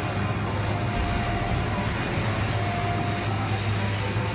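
Heavy asphalt-repair machinery running: a steady low engine drone with a hiss over it.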